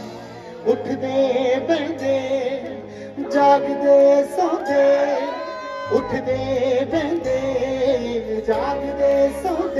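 A live band plays Punjabi pop music through a large PA system, with guitars, keyboards and drums under a sung melody that glides and bends.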